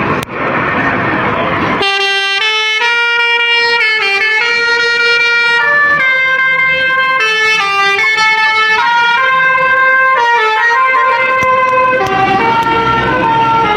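Bus and traffic rumble, then from about two seconds in a bus's basuri telolet horn plays a tune of held notes stepping up and down. The traffic rumble comes back under the tune near the end.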